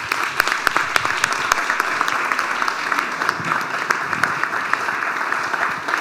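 Audience applauding: a steady round of many hands clapping.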